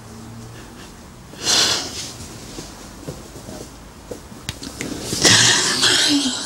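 A woman crying: two heavy, breathy sobs, the first about a second and a half in and a longer, louder one near the end that trails into a short whimper.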